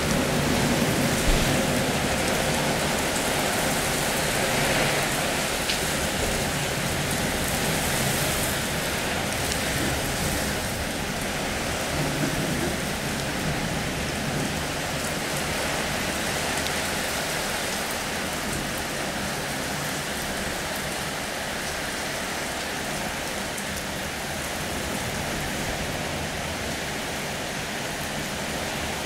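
Steady rain falling on tiled roofs.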